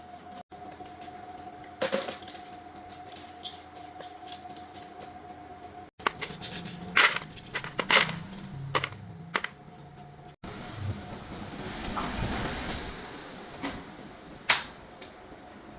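Light metal clinks, taps and knocks in an irregular series, as of small aluminium parts and tools being handled, with a faint steady hum under parts of it.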